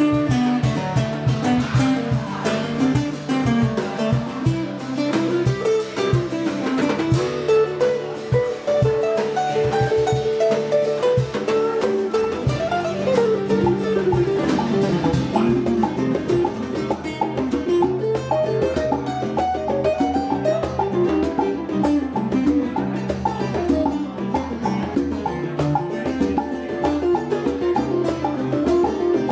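Live instrumental music from a guitar trio: a guitar plays fast, winding melodic runs that climb and fall over steady low notes. Conga and drum-kit percussion keeps time underneath.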